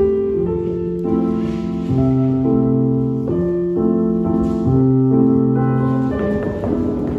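Solo piano playing slow ballet-class music in held chords that change about every second, with a gentle, even pulse.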